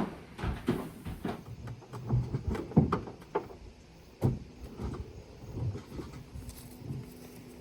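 Irregular knocks, thuds and clunks of things being handled and moved about, most frequent in the first half and thinning out after about four seconds.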